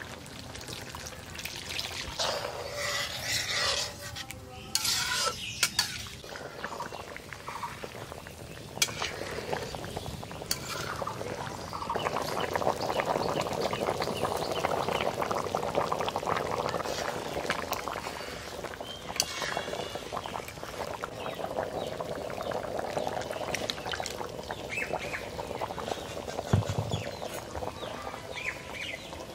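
A fish and taro root curry cooking in a pan, stirred and scraped with a utensil while it fries, with liquid poured in and a few sharp knocks along the way.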